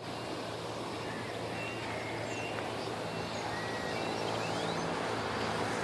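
City ambience: a steady rumble of traffic, with scattered short bird chirps over it.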